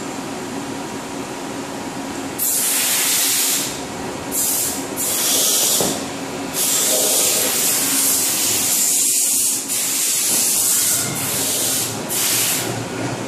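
Compressed air hissing in about seven loud on-and-off bursts, starting a couple of seconds in, over a steady low shop hum.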